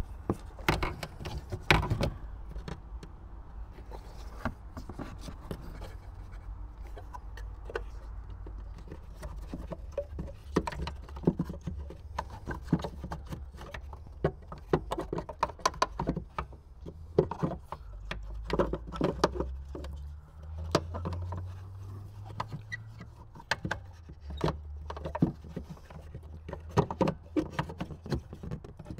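Plastic tail-light bulb holder being handled and pressed into the rear lamp housing: scattered short clicks, taps and rattles of hard plastic, with a low steady rumble underneath.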